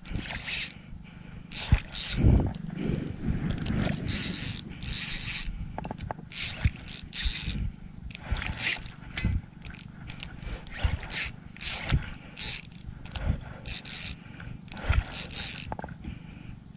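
Fishing reel's drag clicking in short irregular spurts, about one a second, as a hooked fish pulls hard and takes line against a tight drag.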